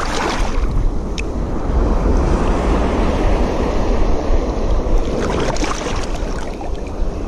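Wind buffeting the microphone over sea water washing around the angler, a steady rushing noise, with a few faint ticks about a second in and again near the end.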